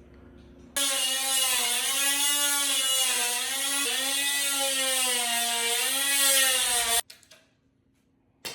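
Electric power tool running for about six seconds, its pitch wavering slightly as it works under load, then cutting off suddenly. A single sharp click near the end.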